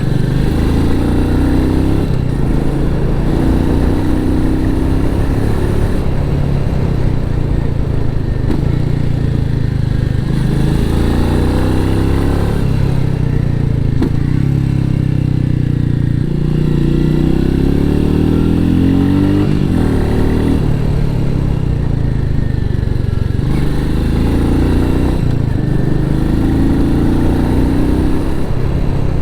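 Royal Enfield Meteor 350's single-cylinder engine running through its stock exhaust on the move, the engine note rising and falling several times as the rider accelerates and eases off.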